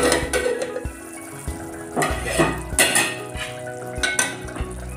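A metal plate used as a lid clattering against a metal cooking pot as it is lifted off, with a loud clank at the start and a few more clinks and scrapes of metal on metal.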